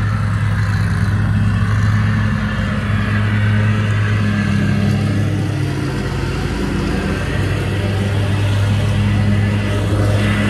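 Ride-on lawn mower's engine running steadily with a low hum that dips a little midway and comes back.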